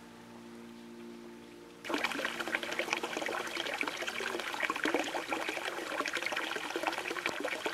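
Water pouring steadily from a bamboo spout into a stone basin, a busy splashing trickle that starts suddenly about two seconds in. Before that, soft background music with held notes.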